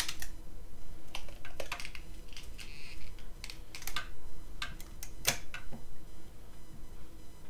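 Small irregular clicks and taps of fingers working the film and metal parts of a Kodak Retina Reflex's open film chamber while threading 35mm film onto the take-up spool, with a brief rustle about three seconds in. The sharpest clicks come right at the start and about five seconds in.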